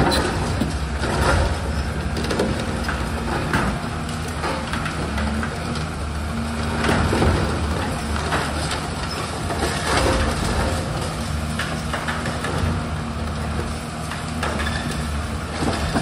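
Long-reach demolition excavator's diesel engine running steadily while the machine breaks up the concrete structure, with irregular crunches and clattering debris every few seconds.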